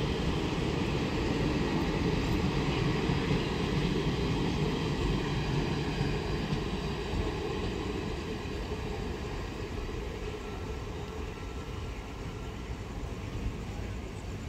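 Passenger express train's coaches running past on the track with a steady rumble, fading gradually as the train draws away into the distance.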